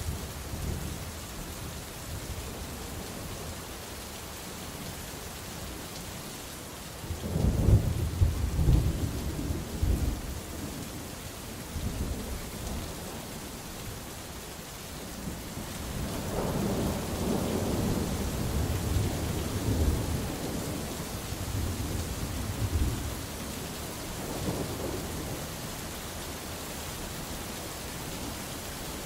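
Steady rain falling with thunder rumbling over it. A loud, jagged peal comes about seven seconds in, a longer rolling rumble follows about halfway through, and a weaker one comes near the end.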